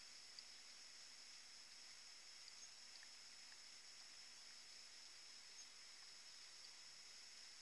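Near silence: a faint, steady high-pitched hiss with a few tiny ticks.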